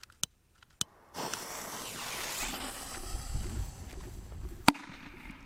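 A few clicks as a jet lighter is fired, then a steady hiss for about three seconds while the fuse burns, and near the end a single sharp bang as a small firecracker goes off in a plastic pipe.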